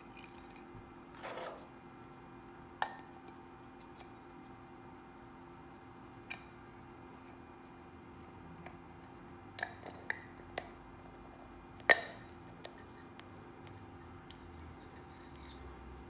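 Metal parts of a Honda CBX oil filter assembly clicking and clinking as they are handled: the finned oil filter cover, its centre bolt and spring, and the paper filter element being seated in it. Scattered light clicks with a short rustle near the start and the sharpest click about twelve seconds in, over a faint steady hum.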